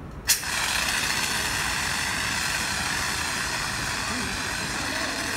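Dry-chemical fire extinguisher discharging through its hose: a pop as the valve opens about a third of a second in, then a steady loud hiss.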